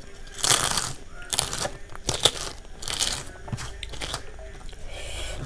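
Crisp fried papad being broken and crushed by hand, crackling in four sharp crunches about a second apart, then fainter crackles.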